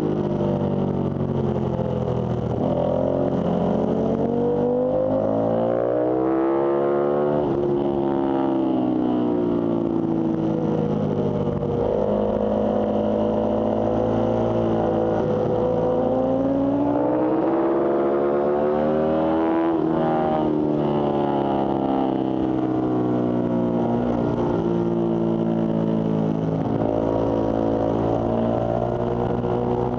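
Ducati sport bike's L-twin engine under hard riding, heard from on board: it climbs in pitch under throttle and falls back again and again, with several sharp drops as it shifts or closes the throttle for corners.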